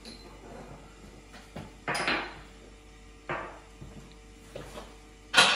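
Kitchen clatter: a handful of separate knocks and clinks of utensils and cookware being handled and set down, the loudest near the end, over a faint steady hum.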